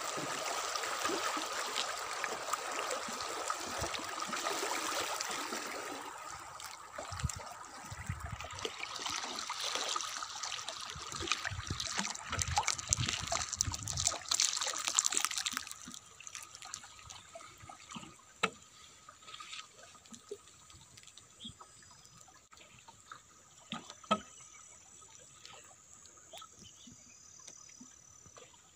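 Moving river water rushing and trickling along the side of a wooden canoe. The water noise is steady for about the first fifteen seconds, then falls away to quiet lapping with a few light knocks.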